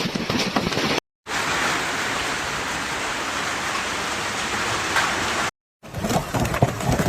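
Heavy storm rain pouring down, heard in three short clips joined by abrupt cuts to silence. The middle clip is a steady even hiss; the last is rougher, with many small knocks of drops or hailstones striking.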